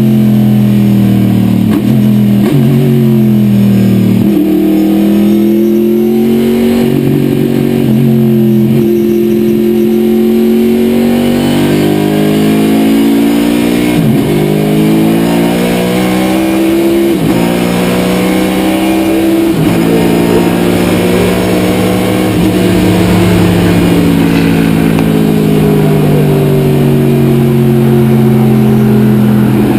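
Corvette C6 sports sedan race car's engine heard from inside the car at race pace, its pitch climbing through the gears with sharp drops at each of several upshifts, and falling away in stretches under braking and downshifts.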